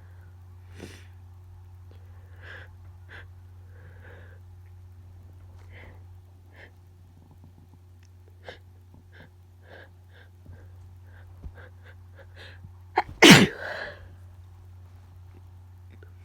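A woman's nose tickling: short, quiet sniffles and catches of breath come every second or so, building up to one loud, wet, powerful sneeze about thirteen seconds in. A steady low hum runs underneath.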